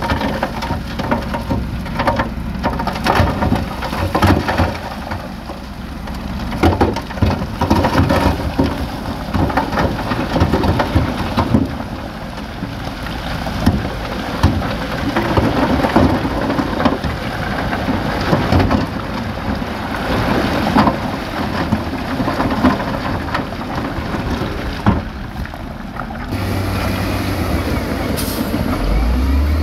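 Loose rock and soil rumbling and clattering as it is tipped and pushed, with many knocks amid a heavy diesel drone. Near the end the clatter gives way to the steady low drone of a diesel engine running.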